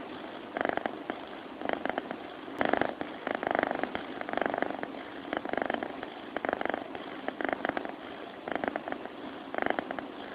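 A sleeping cat purring, each breath a rattling burst of rapid pulses, coming about once a second with short quieter gaps between.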